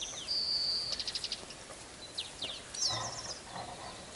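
Small songbirds singing: quick high trills and runs of repeated notes, with one held high whistle in the first second. A short lower sound, such as a rustle or step, comes about three seconds in.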